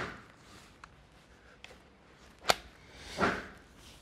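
Footsteps on a concrete floor with soft rustling, and one sharp click about two and a half seconds in.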